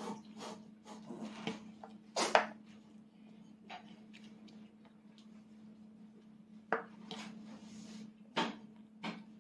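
A toddler's metal fork clinking and scraping against a plate and a rice bowl: a few sharp clinks, the loudest about two seconds in, over a steady low hum.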